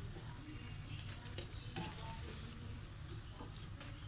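Gram-flour potato and onion pakoras sizzling steadily as they deep-fry in hot oil in a karahi, with a few light clicks of a slotted spatula against the pan as they are lifted out.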